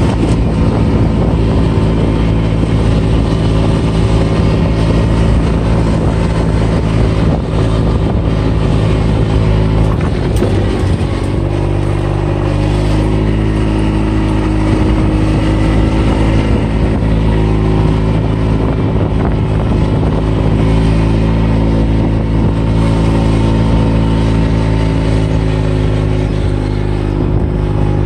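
Kubota utility vehicle's engine running at a steady speed, its pitch shifting about ten seconds in, then holding steady again.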